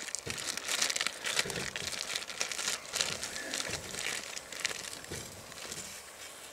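Plastic sausage package crinkling irregularly as it is squeezed and shaken to empty the cocktail sausages and their juice into a cooking pot, with a few soft knocks among the crackles.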